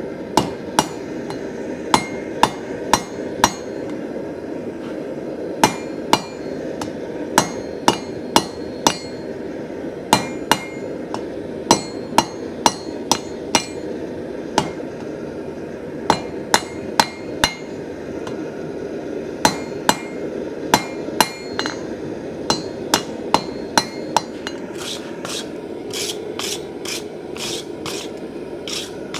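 Hand hammer striking steel on an anvil in runs of several blows, with short pauses between runs and lighter, quicker strikes near the end. A steady rushing noise runs underneath.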